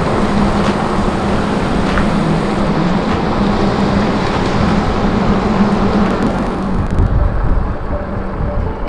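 Mountain bike being ridden over a rough trail: a steady rush of wind on the camera microphone with tyre and frame rumble, heavier for a moment about seven seconds in.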